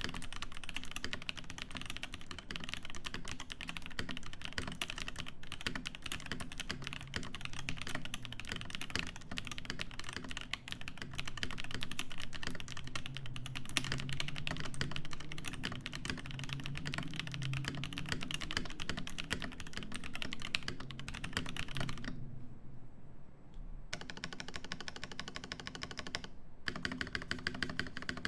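Fast, continuous typing on a Cyberboard mechanical keyboard with lubed Feker Holy Panda tactile switches, a polycarbonate plate and GMK keycaps. The typing stops for about two seconds near the end, then starts again.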